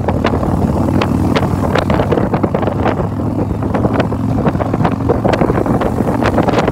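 Harley-Davidson V-twin motorcycle engine running steadily while riding at road speed, with wind buffeting the microphone in frequent crackling gusts.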